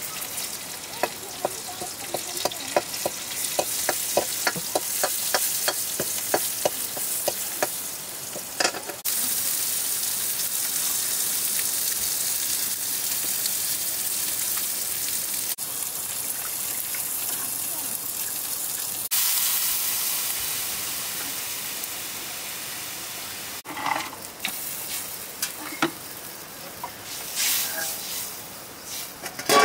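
Greens frying in oil in an iron wok, with a steady sizzle. For the first several seconds a metal ladle scrapes and taps against the pan at about three strokes a second. Near the end there are a few sharp clinks of the ladle on the wok.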